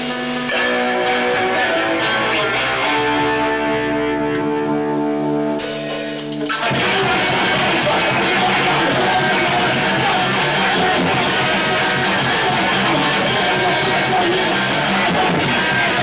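Hardcore punk band playing live. An electric guitar holds ringing notes that change pitch a few times, then about six and a half seconds in the full band comes in loud.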